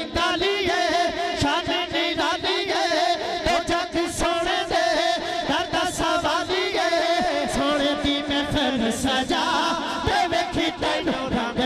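A man singing a Punjabi naat into a microphone over a PA, his voice held and ornamented in long wavering melodic lines above a steady drone.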